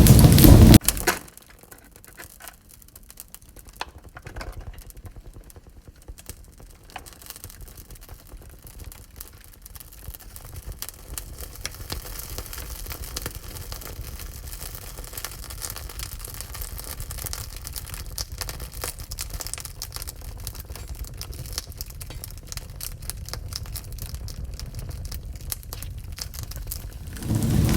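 Wood fire crackling in a wood-burning stove: many small sharp pops and snaps over a soft hiss, slowly growing a little louder. A loud rumbling rush cuts off about a second in and comes back just at the end.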